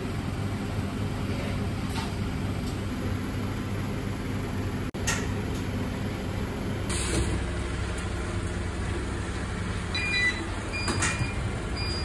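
Steady low mechanical hum of kitchen machinery, with a few light clicks over it.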